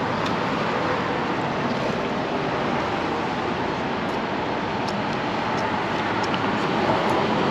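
Steady vehicle noise, an even rushing hum with no changes, with a few faint small ticks in the second half.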